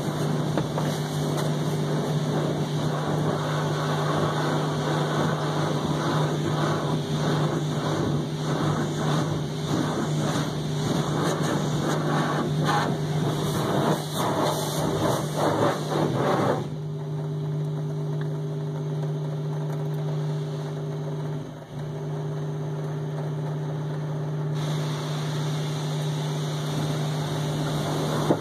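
Automatic car wash heard from inside the car's cabin: water and foam spraying and pelting the windshield and body over a steady low hum. The spraying cuts off suddenly a little past halfway, leaving the hum on its own with a brief dip a few seconds later, then a fainter hiss comes back.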